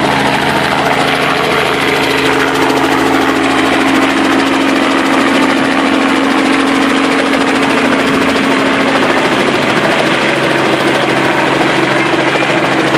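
Nearby helicopter's engine and rotor running steadily, a loud even drone with several held low tones.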